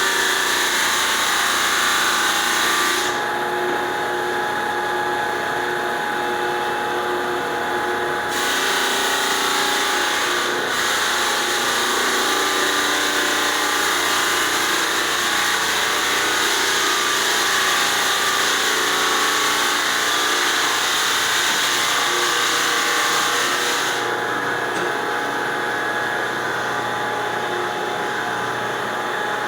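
Belt floor sander running and sanding a wood floor with a coarse 36-grit sleeve: a steady, loud machine drone with a grinding hiss. The hiss drops away about three seconds in, comes back around eight seconds, and fades again near the end.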